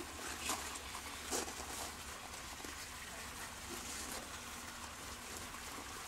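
Faint steady background hiss with a couple of soft ticks, about half a second and a second and a half in.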